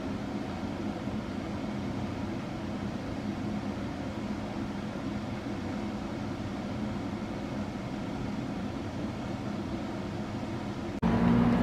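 Steady low ambient rumble and hiss with a faint hum. Near the end it cuts abruptly to a louder steady hum.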